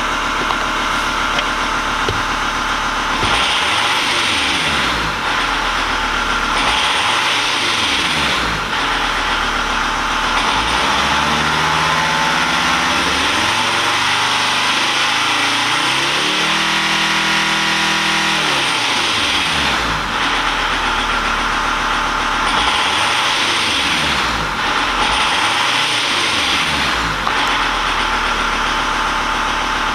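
Volkswagen T4 van engine, revved up and down again and again and held high for a few seconds in the middle, with the rattle (klappern) that the recording was made to capture.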